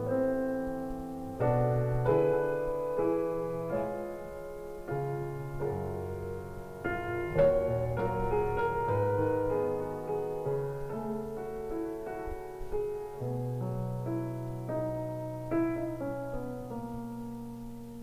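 Slow classical piano music, held chords and melody notes, played back through Yamaha NS-1000 three-way loudspeakers.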